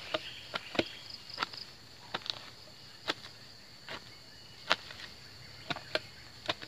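Hoe blade chopping into loose garden soil, a dozen or so sharp strikes at an uneven pace as a raised bed is dug over and levelled. A steady high-pitched drone runs underneath.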